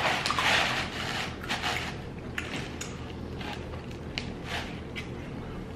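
A slice of pepperoni pizza being torn apart by hand: a crackly tearing rustle in the first second or so, then scattered small clicks and crackles as the piece is handled.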